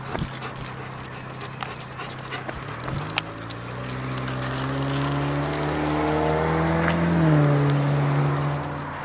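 A car passing on the road: its engine hum rises in pitch and grows louder as it approaches, then drops in pitch as it goes by about seven seconds in.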